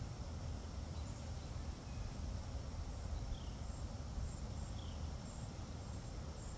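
Quiet outdoor background: a steady low rumble and hiss, with three faint, short, high chirps spread through it.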